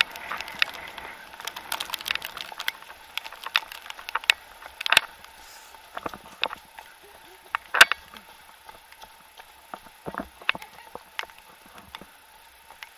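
Irregular sharp taps and knocks over a light hiss of rain, from a handheld camera carried at a run through the rain.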